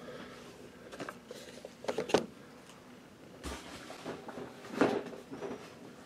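Boxed action figures in cardboard packages with plastic windows being handled and set aside: a few scuffs and knocks, the loudest about two seconds in and another just before five seconds.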